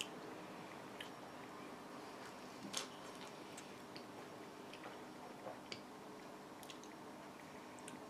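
Faint lip smacks and small mouth clicks, irregularly spaced, from someone tasting a sip of a chocolate milk drink; the loudest is about three seconds in. A faint steady hum sits underneath.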